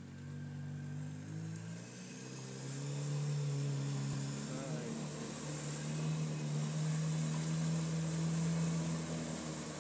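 ATV engine revving hard while the quad churns in a deep mud hole. The engine climbs in pitch about two to three seconds in, then holds steady at high revs as the machine bogs down and sinks in the mud.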